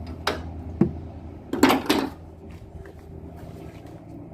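Metal hand tools clinking and knocking as a spanner is worked onto a tight brake bolt: a few sharp clicks, the loudest pair of clanks just under two seconds in. A steady low hum runs underneath.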